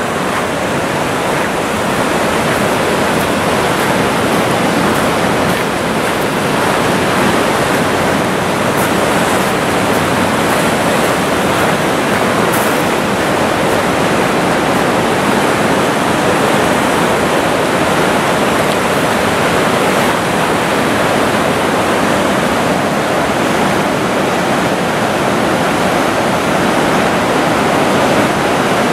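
River in flood, swollen with brown floodwater, rushing through rapids: a loud, steady rush of churning whitewater.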